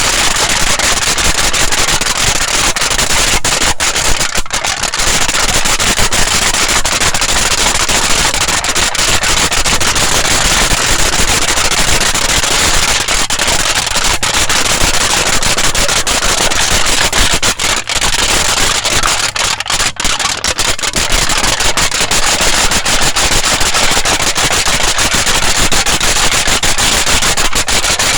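Aluminium foil being crinkled: a dense, continuous run of sharp crackles, with brief lulls about four and twenty seconds in.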